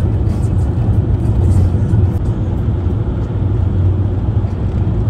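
Steady low rumble of engine and road noise inside a moving tour vehicle at cruising speed.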